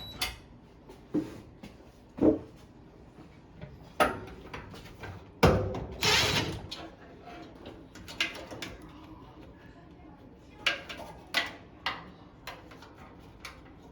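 Scattered knocks, clicks and scrapes of appliance parts and panels being handled during a washer and dryer repair, with a sharp knock about five and a half seconds in followed by a brief scraping rush.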